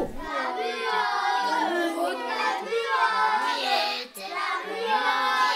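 A high voice singing a slow melody in long held notes, with a brief break about four seconds in.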